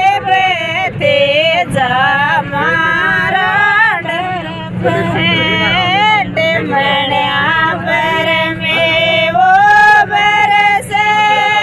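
Women singing a Rajasthani folk wedding song (a beera/bhat geet) in a group, one voice leading, over a steady low hum from the bus they ride in.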